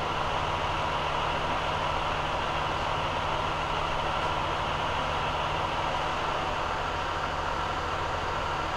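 A heavy vehicle's engine idling steadily: an even low hum with a faint steady whine above it.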